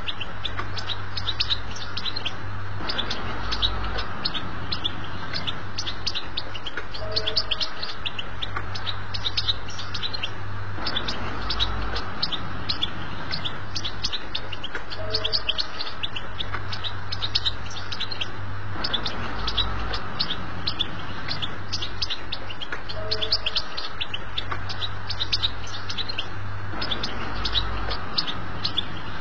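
European goldfinch singing the 'betbta' song used to teach young goldfinches: a dense run of rapid, sharp twittering notes. A steady low hum sits beneath, and the passage repeats about every eight seconds.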